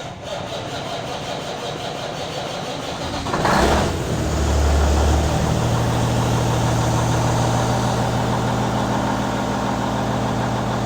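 Truck's diesel engine being started: the starter cranks for about three seconds, the engine catches with a loud surge about three and a half seconds in, briefly runs up, then settles into a steady idle.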